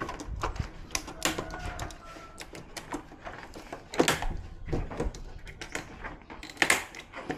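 Irregular clicks and taps of plastic and sheet parts being handled while an opened LCD TV's backlight panel layers are fitted back in place.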